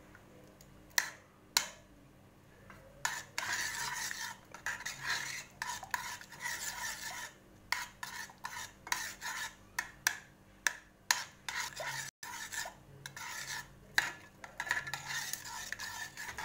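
Metal spoon stirring honey and butter in a stainless steel saucepan, scraping and clinking against the pan. Two sharp clinks come about a second in, then from about three seconds on the strokes run on in an uneven rhythm.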